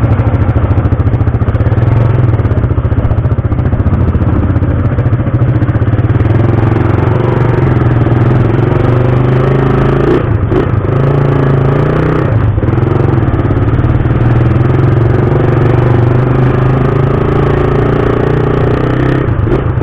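Suzuki Raider 150 single-cylinder four-stroke motorcycle engine running under way. Its pitch rises and falls with speed, with two brief dips about ten and twelve seconds in.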